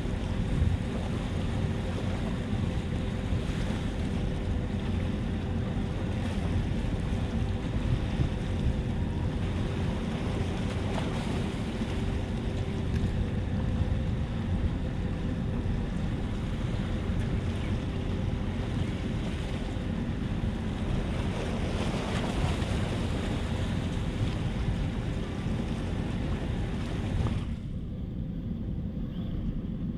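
Wind buffeting the microphone and small waves washing against rock boulders, with a faint steady hum underneath. Near the end the higher hiss thins out.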